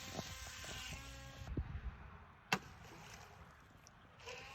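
Small remote-control boat's electric motor whining faintly over a steady hiss of water and outdoor noise, with a single sharp click about two and a half seconds in.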